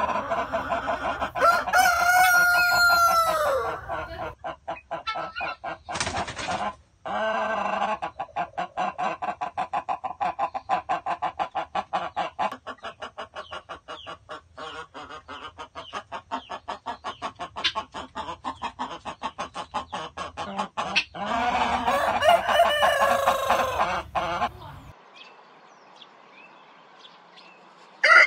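A flock of chickens clucking in a fast, steady patter, with a rooster crowing about two seconds in and another crow near the end.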